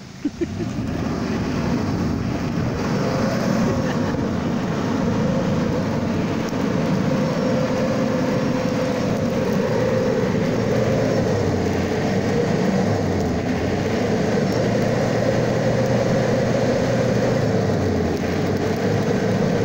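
Light pickup truck engine held at raised revs, its exhaust blasting onto a barbecue fire to fan it alight. The sound climbs over the first second or two, then holds steady.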